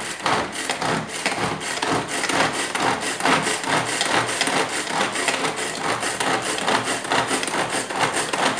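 Hand-operated food chopper grinding dry onions: a fast, continuous clatter of quick blade strokes through the onion.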